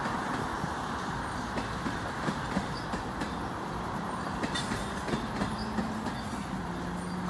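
Freight train of tank cars rolling past: a steady rumble of steel wheels on the rails with scattered light clicks. A low steady hum fades in over the last few seconds.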